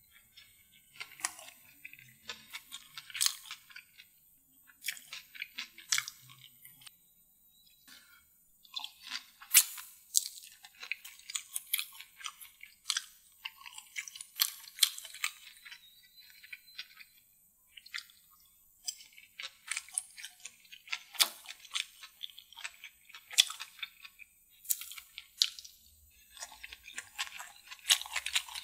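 Close-miked chewing of devilled food: wet mouth sounds with irregular, sharp crunches throughout.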